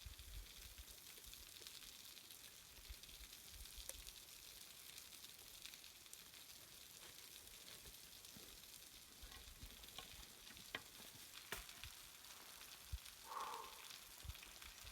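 Near silence: a faint steady hiss with scattered soft clicks and crackles, and one short chirp-like sound near the end.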